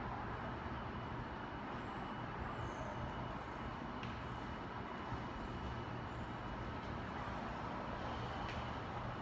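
Steady low hum with an even hiss: the room tone of a building hallway.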